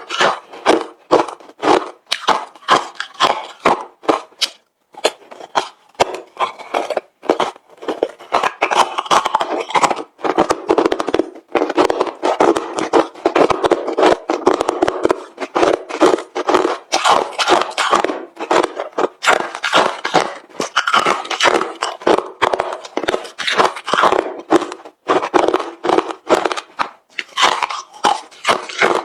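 Close-up crunching of hard refrozen crushed ice being chewed, a rapid run of sharp cracks and crackles that pauses briefly twice.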